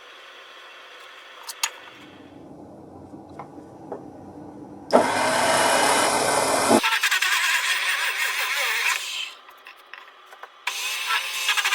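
Wood being cut or abraded by hand, a rasping, scraping noise in a few short stretches that start and stop abruptly. The loudest, deepest stretch comes about five seconds in.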